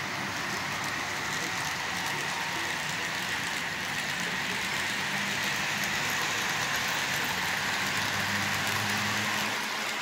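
HO-scale Stewart Hobbies diesel locomotives and their trains running close by on a model layout: a steady rush of small metal wheels rolling on rail, with a faint motor hum.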